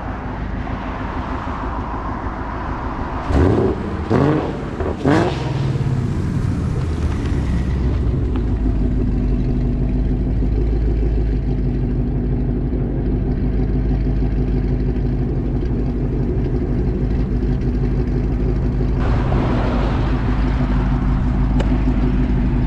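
2019 Ford Mustang GT's 5.0 V8, fitted with Kooks headers and a Borla Atak cat-back exhaust, running steadily while the car drives along. A few loud knocks and rustles from the camera being handled come about three to five seconds in.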